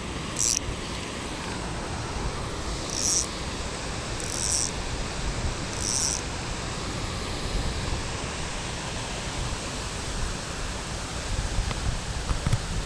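Steady rush of water spilling over a dam, with a few short high hissing swishes about half a second, three, four and a half and six seconds in.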